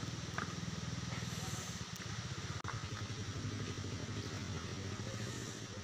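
A low, steady engine-like rumble under a light hiss, which drops out for an instant about two and a half seconds in.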